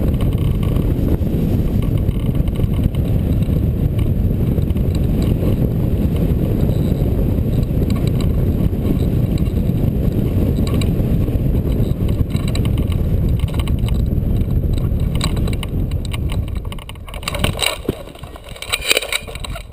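Airflow rushing over the microphone of a hang glider flying low on its landing approach. About three seconds before the end the rush dies away as the glider slows and flares to land, and a few sharp knocks and rattles follow.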